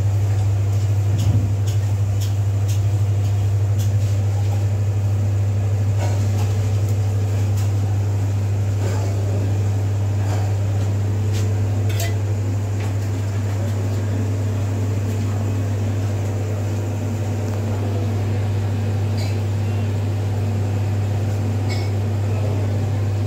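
A steady, loud low machine hum that does not change, with scattered faint clicks over it.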